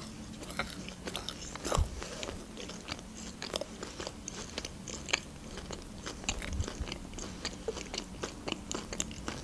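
Close-miked chewing of a soft marshmallow sweet: a run of small wet mouth clicks and smacks, with a louder one about two seconds in.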